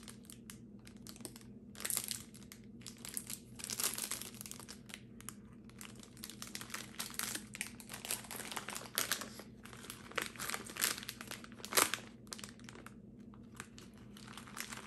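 Clear plastic snack wrappers crinkling as individually wrapped biscuits and a bag of small candies are handled, in irregular rustles with a sharper crackle late on.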